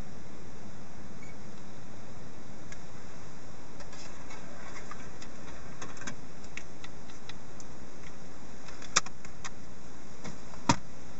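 Steady hiss with scattered light ticks and taps, and two sharper clicks, one about nine seconds in and one near the end, from fingers working the touchscreen and buttons of a car dashboard head unit.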